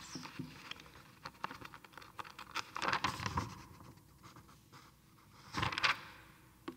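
Papers rustling and small handling clicks and knocks close to a lectern microphone, with two louder rustles about three and six seconds in.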